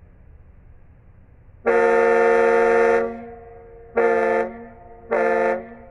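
Ship's horn sounding one long blast followed by two short blasts.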